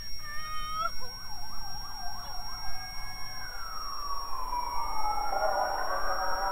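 Emergency vehicle sirens: a fast up-and-down yelp for the first couple of seconds, then slower wails rising and falling, with several sirens overlapping near the end.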